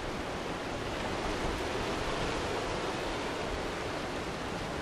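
Small sea waves washing and breaking over a rocky shore: a steady, even rush of surf with an uneven low rumble underneath.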